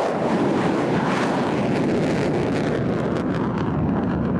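Jet aircraft engine noise: a steady, loud rushing roar, its hiss thinning slightly near the end.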